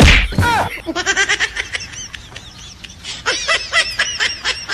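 A sudden loud burst at the start, then rapid high-pitched laughter, about four or five short ha's a second, running through the rest.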